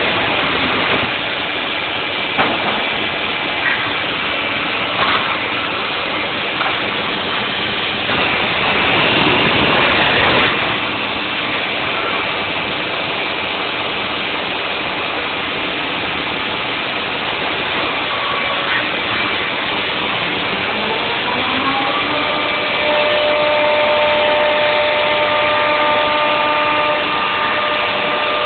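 CNC router cutting the cavities into a Stratocaster guitar body: steady machine noise with a few sharp clicks, growing louder for a couple of seconds about a third of the way in. Past two thirds of the way a whine rises in pitch and settles into a steady tone.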